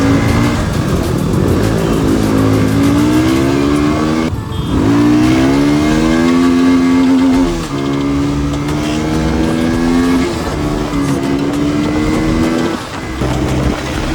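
Motorcycle engine pulling hard and changing up through the gears: its pitch climbs, then drops briefly at each shift, with shifts about 4, 8 and 13 seconds in.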